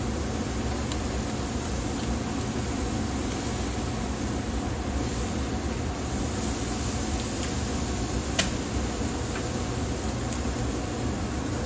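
Marinated beef short ribs hissing steadily on the hot grate of a ceramic kamado grill, under a low hum. One sharp click of the metal tongs comes about eight seconds in.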